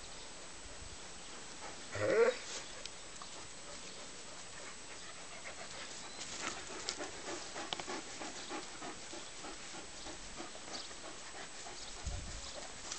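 Two large shaggy dogs playing rough: one short, loud dog vocalisation about two seconds in, then panting and faint scuffling.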